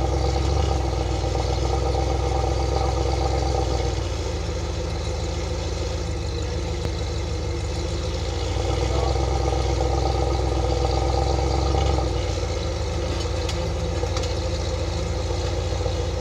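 Vehicle engine running at low speed, with a heavier low rumble for the first few seconds and again in the middle, as the throttle is opened and eased off.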